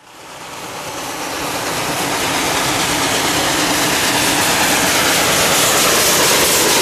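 Steam locomotive approaching under heavy power: a dense, steady rush of exhaust and escaping steam. It swells up over the first two seconds and then holds loud.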